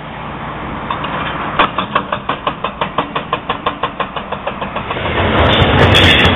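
Excavator-mounted hydraulic breaker hammering concrete in a fast, even rhythm, about six blows a second for roughly three seconds. About five seconds in, the louder, steady noise of a freight train passing takes over.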